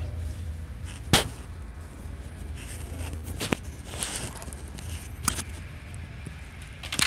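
Several short, sharp clicks and knocks over a steady low hum. The loudest click comes about a second in, and fainter ones follow at intervals of one to two seconds.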